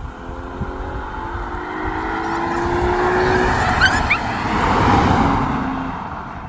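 Car engine accelerating hard from a standstill, its pitch climbing steadily, breaking off about three and a half seconds in as it changes gear, then pulling again at a lower pitch. Loud road and wind noise builds with the speed and eases off near the end.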